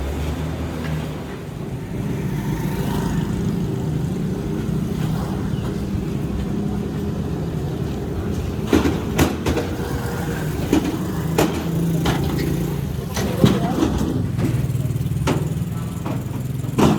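A motor running steadily, with a series of sharp knocks from about halfway through.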